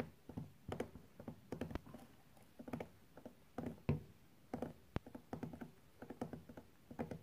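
Three gerbils drumming their hind feet on the cage floor: short bursts of rapid thumps, one after another and sometimes overlapping, a way gerbils signal to each other.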